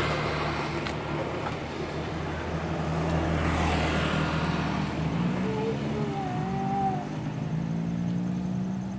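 Small single-cylinder petrol water-pump engine driving a long-shaft propeller on a bamboo raft, running steadily, its speed rising a little after about five seconds.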